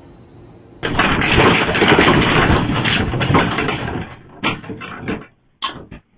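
Loud rattling and clattering, as of a room and its contents shaken in an earthquake, starting suddenly about a second in and lasting about four seconds, then dying away into a few separate knocks.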